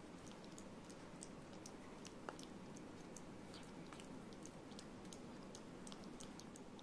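Angora ferret lapping milk from a bowl: faint, quick, irregular ticks of its tongue, several a second, as it drinks eagerly.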